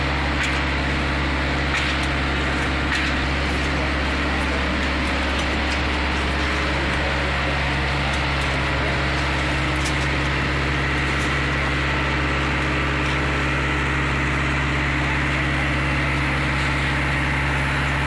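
Engine of a reversible concrete mixer with pump, running steadily at constant speed.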